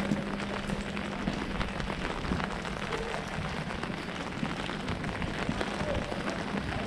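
Steady rain pattering on an umbrella overhead and on wet paving: a dense spray of small drop ticks over an even hiss, with a faint steady low hum underneath.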